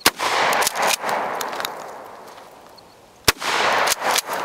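Two blasts from a Mossberg Maverick 88 12-gauge pump-action shotgun, about three seconds apart, each followed by roughly a second of rolling echo.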